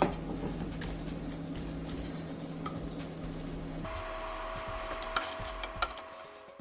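Chicken pieces sizzling as they fry in oil in a pan while being stirred, with a couple of sharp clicks near the end.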